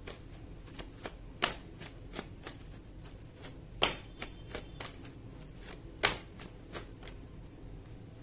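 A tarot deck shuffled by hand, the cards making sharp clicks and snaps: three louder snaps about two seconds apart among lighter ticks.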